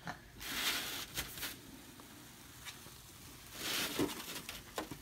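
Two short bursts of hissing rustle, with a few light clicks, as hands grab and squeeze a rubber balloon stretched over a bottle's neck.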